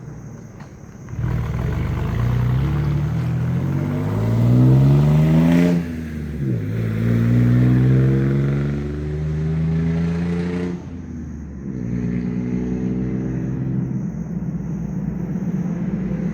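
Straight-piped 4.2-litre V6 of a 2000 Ford F-150 (muffler deleted, catalytic converters kept) pulling away under acceleration about a second in. The engine note climbs, drops at a gear change about six seconds in, climbs again, drops at a second shift near eleven seconds, then pulls on steadily.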